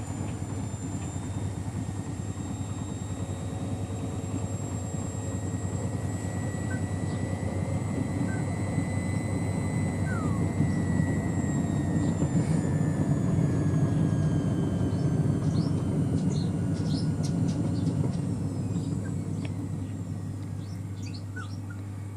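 Miele Softtronic W 2557 WPS washing machine spinning: a steady drum rumble with a low hum and a high motor whine. The whine drops slowly in pitch and the sound grows quieter toward the end as the spin slows, with a few light clicks.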